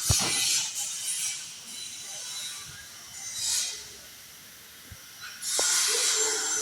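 Several bursts of hissing air in a truck workshop, the longest near the end. There is a sharp knock right at the start and a lighter one about five seconds in.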